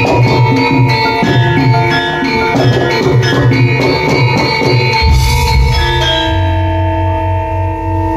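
Javanese bronze gamelan playing a gending: struck bronze metallophones and drum in a steady rhythm. About five seconds in the rhythmic striking stops on a deep low stroke, and the bronze tones ring on.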